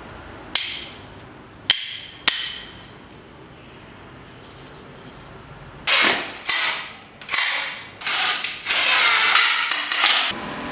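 Three sharp knocks, then a cordless drill-driver running in five short bursts, the last one the longest, as it fastens a wooden disc onto a wooden frame.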